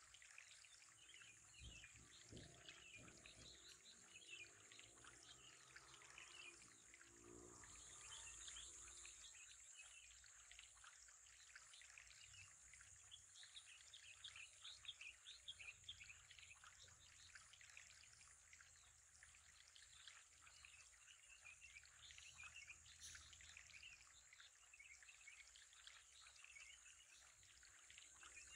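Faint trickling water with a steady high hiss.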